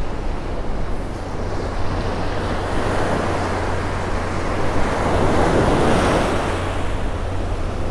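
Surf breaking on a sandy beach and washing up the shore, one wave swelling louder about five to six seconds in. Wind rumbles on the microphone throughout.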